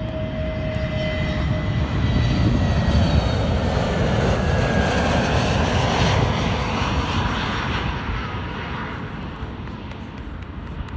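Jet airliner flying low over the airfield boundary on its landing approach. The engine roar swells over the first couple of seconds, holds, then fades away in the last few seconds.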